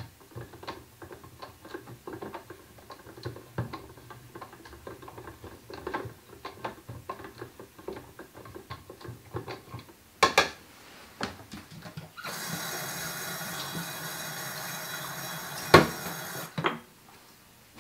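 Light, irregular clicking from the film developing tank as its reel is worked by hand, with a louder knock about ten seconds in. Then a tap runs water into a steel kitchen sink for about four seconds and is shut off with a couple of sharp knocks.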